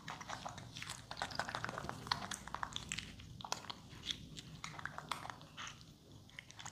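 A baby macaque biting and chewing melon slices: faint, quick clicks of eating that go quiet briefly near the end.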